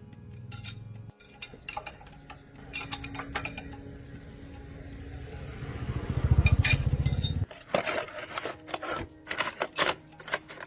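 Metal clinking and knocking, as of tools and metal parts being handled, with a low pulsing rumble that builds about six seconds in and cuts off sharply a second and a half later.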